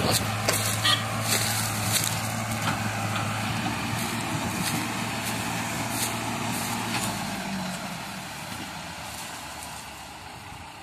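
New Holland and HMT tractors' diesel engines running steadily under load as they pull a fully loaded sugarcane trolley, a low drone that fades after about seven seconds as the tractors draw away. Scattered sharp crackling clicks over it.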